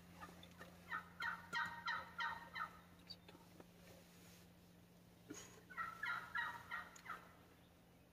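Turkey yelps: two rapid series of calls at about six notes a second, each lasting one to two seconds, several seconds apart.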